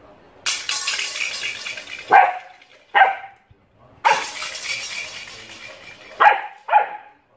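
Alaskan Malamute puppy giving four short, sharp barks in two pairs, between two longer stretches of harsh rasping noise.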